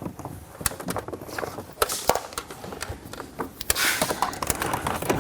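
Irregular clicks, taps and rustling of hands routing a radar detector's power wire along the side of the car's interior, with a brief louder rustle about four seconds in.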